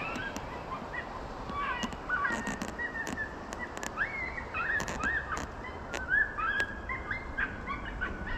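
Electronic predator call playing a series of short, high animal cries that rise and fall, about two a second, with scattered sharp clicks.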